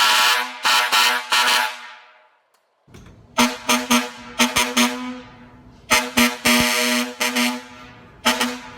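Hadley E-Tone air horn blasting at one steady pitch in rapid short honks, in several groups: a few blasts, a pause of about a second, then two longer runs of quick honks and one last blast near the end.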